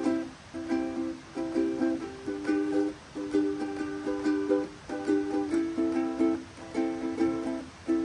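Ukulele strummed in a steady rhythm, about two strums a second, moving through a chord progression.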